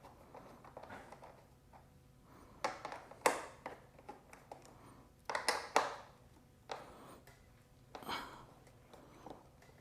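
Scattered clicks, scrapes and knocks of hand work with a Phillips screwdriver on a pit bike's screws and plastic parts around the fuel tank.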